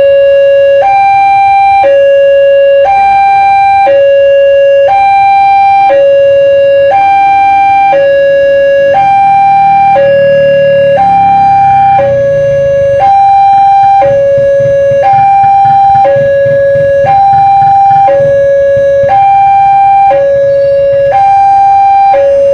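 Railway level-crossing warning siren sounding a two-tone hi-lo alarm, switching between a lower and a higher tone about once a second, the signal that a train is approaching the crossing. A low rumble runs beneath it from about nine seconds in.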